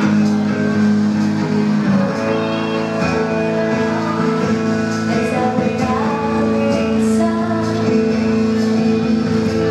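Music: a guitar-led song of sustained, held chords that change every second or so.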